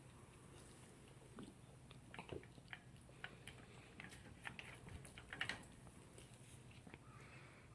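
Toy poodle eating its dinner: faint chewing and crunching, a scattered run of small clicks, loudest about five and a half seconds in.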